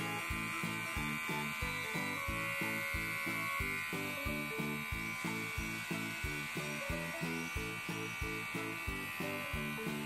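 Electric hair clipper buzzing steadily as it cuts the ends of long straight hair, over background music with a quick, even beat.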